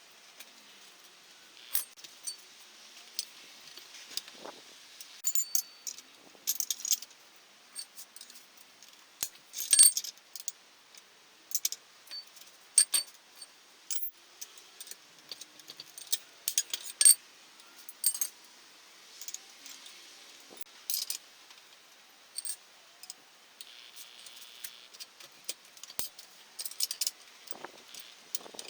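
Metal hand tools and small engine parts clinking and tapping irregularly, with a few sharp louder clanks.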